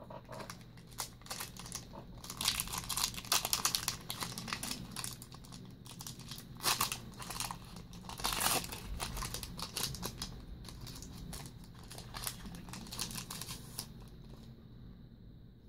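Foil wrapper of a Yu-Gi-Oh Magic Ruler booster pack crinkling and tearing as it is ripped open by hand: a run of irregular crackles, loudest a few seconds in and again about eight seconds in, dying away near the end.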